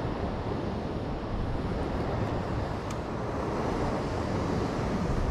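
Wind buffeting the microphone over the wash of sea waves on rocks: a steady, low rushing noise.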